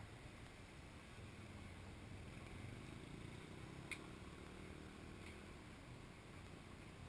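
Near silence: faint low background rumble, with one short sharp click about four seconds in and a fainter one about a second later.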